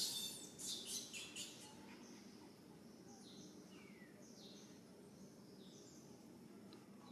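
High-pitched squeaky animal chirps: a quick flurry of them in the first second and a half, then a few fainter, short descending chirps.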